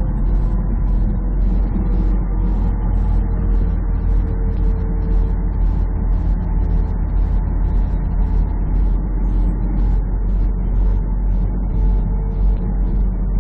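Semi truck cruising at highway speed, heard from inside the cab: a steady low rumble of engine and tyres on concrete.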